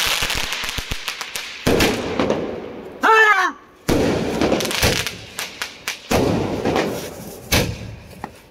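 Fireworks going off from a multi-shot aerial cake: a loud bang about every two seconds, each fading into a hiss. A short, wavering high-pitched cry cuts in about three seconds in.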